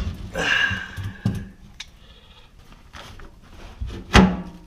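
Metal pliers and wrench knocking and scraping on a rusted garbage disposal's mounting ring as it is forced to turn. A sharp knock comes at the start, then a grating scrape of about a second, and a heavier knock with a short ring about four seconds in.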